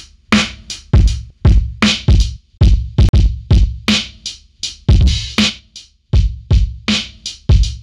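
Drum loop playing back: kick and snare hits in a steady, quick pattern, EQ'd with a boost around 30 Hz and extra crack on the hits.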